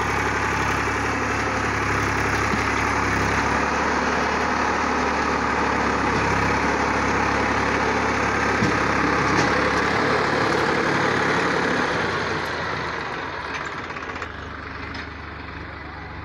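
Massey Ferguson 7250 DI tractor's three-cylinder diesel engine running steadily while pulling a land leveler through loose soil, fading away over the last few seconds.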